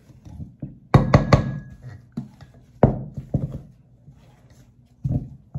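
Wooden spoon knocking against a stainless steel mixing bowl while mashed potato is worked. Three quick knocks come about a second in, then a few single knocks, with a brief metallic ring from the bowl after the first cluster.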